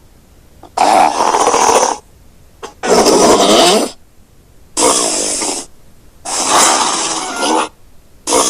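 Borrowed monster vocal sound effects, calls with a rough, pitched tone. Four separate calls of about a second each come with short gaps between, and a fifth begins near the end.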